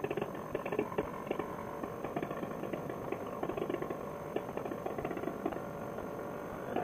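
Paramotor trike engine idling faintly under a steady scatter of small crackles.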